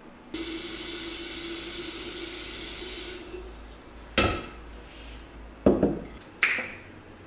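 Kitchen faucet running into a glass vase, filling it with water for about three seconds, then shut off. Three sharp knocks of glass on a hard surface follow, each ringing briefly.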